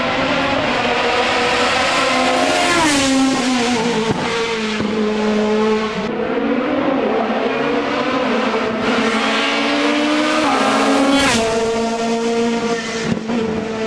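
Racing car engine at high revs climbing a hill, its pitch dropping and jumping several times as it shifts through the gears.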